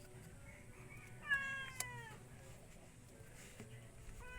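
A cat meowing: one call about a second in, a little falling in pitch and lasting under a second, and another starting at the very end.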